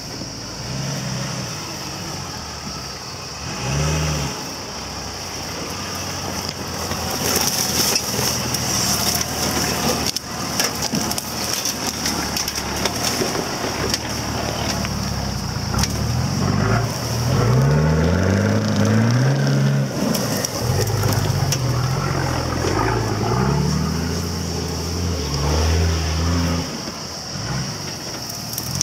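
Nissan Patrol 4x4's diesel engine working at low speed through a ditch, its revs rising in repeated climbs in the second half as it pulls the truck up and over, with crunching from brush and ground under the tyres.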